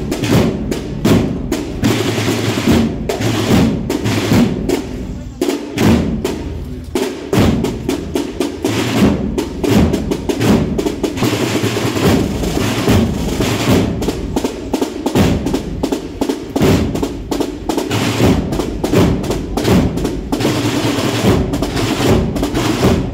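Spanish procession band (agrupación musical) playing a march, led by snare drums with rolls over a steady drum beat, with the band's other instruments sounding beneath.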